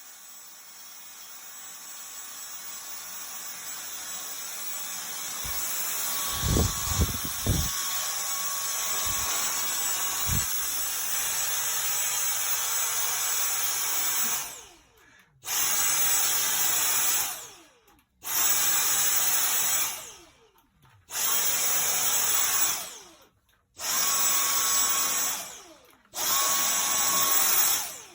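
Vacuum cleaner motor running with a steady rushing whine that builds up over the first few seconds, with a few dull bumps along the way. From about halfway it is switched on and off five times, each run lasting about two seconds, and the whine winds down each time it cuts out.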